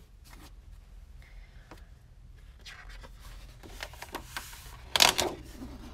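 Sheets of 12x12 patterned scrapbook paper rustling and sliding over one another as they are sorted, with soft rubbing throughout and a loud, short swish of paper about five seconds in.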